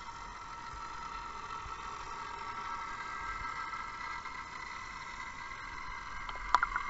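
Vintage toy U-boat submarine's motor running underwater: a steady whine. A few sharp clicks come about six and a half seconds in.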